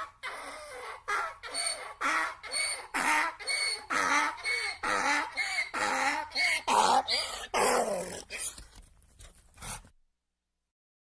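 Donkey braying: a long run of alternating hee-haw calls, about two a second, growing weaker near the end and then cutting off to silence.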